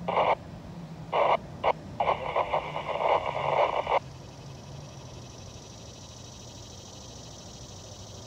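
Railroad scanner radio crackling in short, choppy bursts of unintelligible transmission for about four seconds, then cutting off abruptly, leaving only a faint steady background hum.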